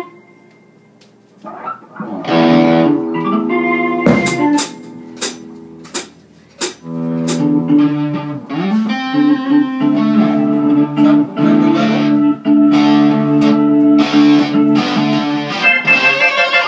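A small rock band playing live in a rehearsal room: electric guitar and keyboard notes with drum and cymbal hits. After a quiet first second or so it comes in loud, with the keyboard holding steady chords through the second half.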